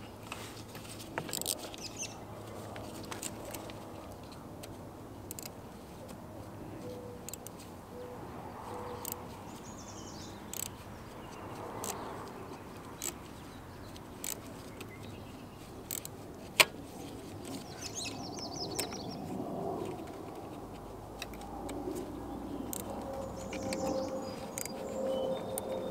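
Scattered light clicks and knocks of hands fitting a car's cold-air intake hose onto the inlet pipe's silicone coupler, with one sharper click about two-thirds of the way through. Birds chirp faintly now and then.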